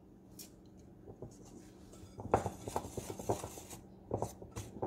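Wire whisk stirring flour in a glass mixing bowl, its wires tapping and scraping against the glass in short, irregular strokes starting about two seconds in.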